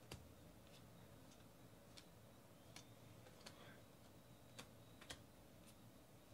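Faint, sharp clicks of thick acetate Topps High Tek trading cards being flipped one by one through a stack in the hands, about nine of them at uneven intervals.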